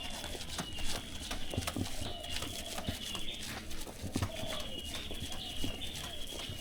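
Footsteps knocking on a hard path, with a high chirping repeating over them again and again.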